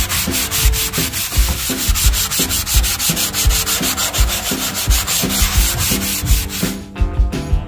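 A sanding sponge rubbed back and forth by hand over the painted sheet-metal face of an old sign, a rasping hiss in quick, even strokes.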